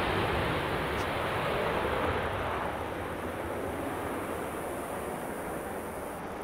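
Twin jet engines of a US Navy F/A-18 in full afterburner on its takeoff roll: a loud, even roar that slowly fades as the jet lifts off and climbs away.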